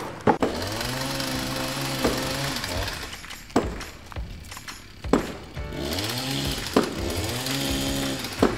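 A motor hum winds up, holds steady for about two seconds and winds down, twice. Sharp knocks of wooden toy logs and plastic crane parts fall between the hums.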